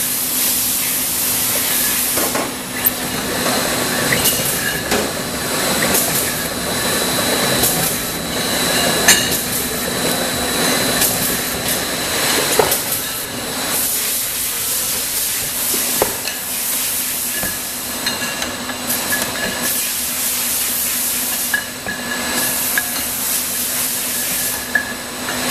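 Bottle labelling machine and conveyor of a wine bottling line running: a steady hum under a constant hiss, with scattered clicks and knocks.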